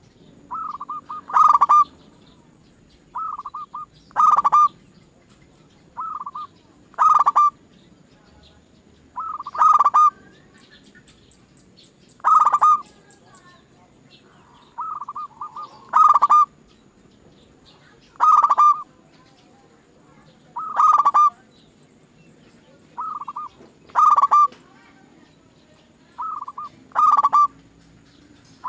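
Zebra dove (perkutut) cooing: a short phrase repeated about every two and a half to three seconds, each a few quick soft notes followed by a louder coo.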